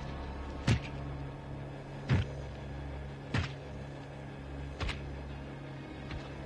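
Slow, heavy boot footsteps, five sharp knocks about one every second and a half, as a man steps down a ladder onto a ship's deck, over a steady low engine drone.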